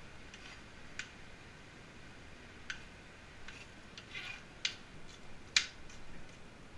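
Kitchen knife cutting a green bell pepper on a plastic cutting board: a few sharp, unevenly spaced knocks of the blade on the board, the loudest near the end, with softer cutting sounds between.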